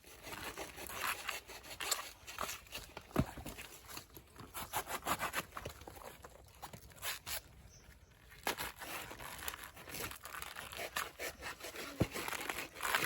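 A banana flower being torn apart by hand: irregular crisp crackling, tearing and snapping of its bracts, with many sharp clicks.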